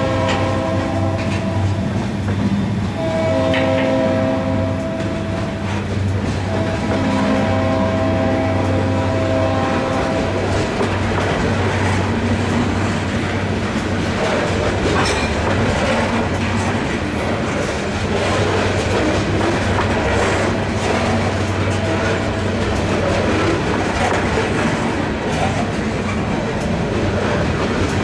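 Freight train cars rolling past at close range, the wheels clacking and rumbling steadily over the rails. A train horn sounds in long blasts during the first ten seconds.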